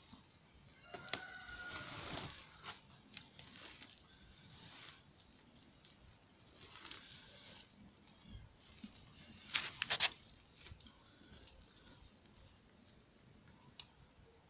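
Woven plastic sack rustling and crinkling under a calico cat as a hand strokes it and the cat shifts about, with a sharp burst of crackling about ten seconds in.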